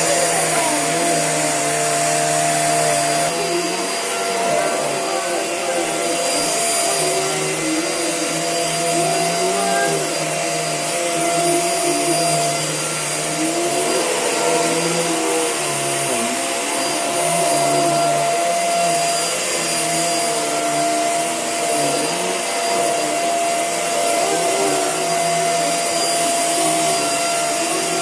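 Household vacuum cleaner running continuously, with a steady high whine over a lower motor hum that wavers in pitch as it is worked over the floor.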